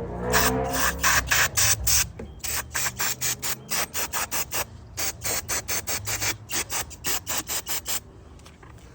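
Hand ratchet wrench clicking in quick, even strokes, about four or five clicks a second, with two short breaks, stopping shortly before the end.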